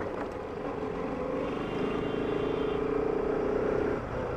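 Motorcycle engine running at low road speed over road noise, its hum growing a little louder for a couple of seconds and dropping back about four seconds in.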